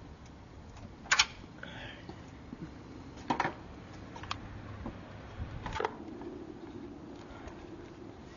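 A few sharp clicks and knocks, four in all, spread over several seconds, from hands and parts being worked at the underside of a car's hood.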